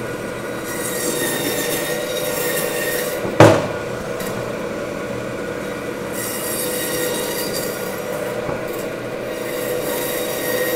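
Meat bandsaw running with a steady hum while its blade cuts through the vertebrae of a beef rib section; the cutting grows louder and hissier twice. A single sharp knock about three and a half seconds in is the loudest sound.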